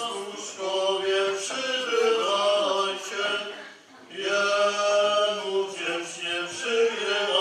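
Voices of the nativity-play cast singing a Polish Christmas carol in long held notes, with a short breath break about four seconds in.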